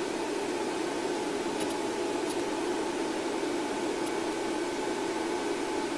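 Steady hiss with a low hum and faint steady tones, unchanging throughout, with no speech: the open audio feed between radio transmissions.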